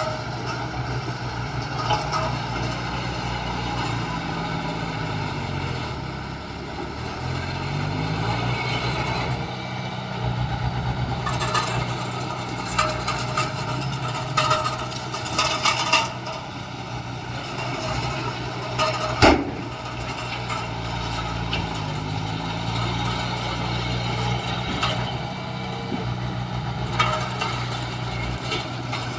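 Heavy diesel construction machinery running steadily, its engine pitch dipping and climbing back twice, with scattered metallic clanks and one sharp knock about two-thirds of the way through.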